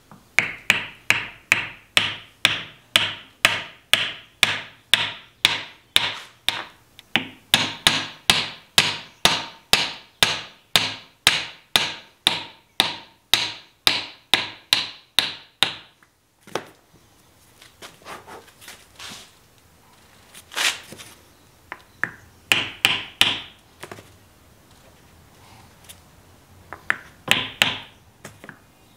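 Hammer blows on a wooden block held against the end of a lathe headstock spindle, driving the spindle endwise into the headstock. For about sixteen seconds the blows come steadily, about two a second. Then they stop and give way to a few scattered knocks and a short run of taps near the end.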